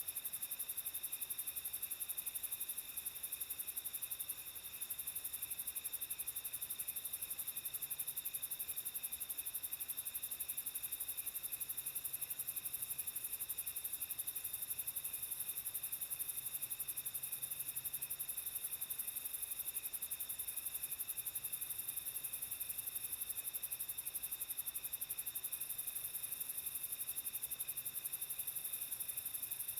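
Steady chorus of crickets and other night insects trilling at several overlapping pitches, with a fine high hiss of insects above.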